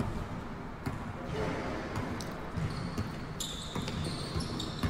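Basketball dribbling on an indoor gym court: separate bounces that ring in the large hall. A high steady squeak comes in about three and a half seconds in.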